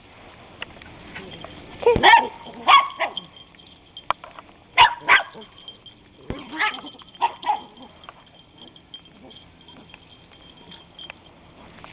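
Dachshund puppy barking: short, sharp barks in small clusters of two or three, from about two seconds in until about seven and a half seconds in.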